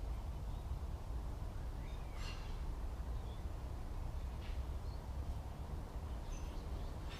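Wild birds giving short, scattered calls, the clearest about two seconds in, over a steady low rumble.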